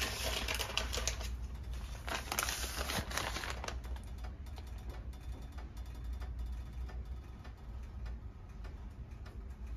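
Light rustling and soft pattering of shredded mozzarella being taken by the handful from a plastic bag and sprinkled onto a baked potato, a busy run of small clicks for the first few seconds, then sparser, over a low steady hum.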